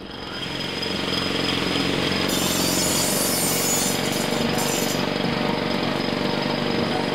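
Dense, steady intro sound: a gritty noise under held tones, fading in over the first second.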